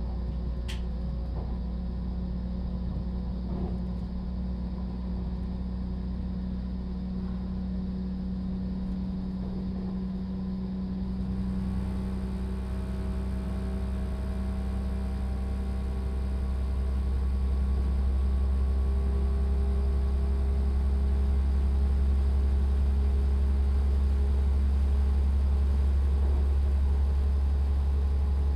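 Class 172 Turbostar diesel multiple unit running at speed, heard from inside the passenger saloon: a steady low drone from its underfloor diesel engine with the train's running noise. About halfway through, more pitched engine tones join, and the engine drone then grows louder and stays up.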